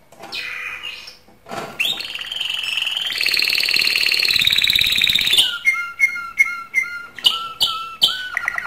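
Male domestic canary singing its courtship song: a long rolling trill, then short repeated notes about three a second, breaking into a fast trill near the end.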